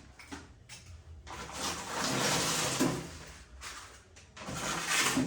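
Grocery packaging being handled and moved about, with rustling and shuffling in two stretches: a longer one from about one to three seconds in, and a shorter one near the end.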